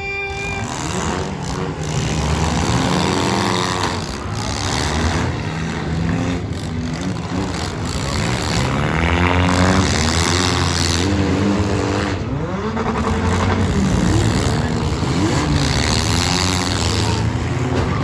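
Several four-cylinder demolition derby cars running hard in the arena, their engines revving up and down in overlapping, constantly changing pitches.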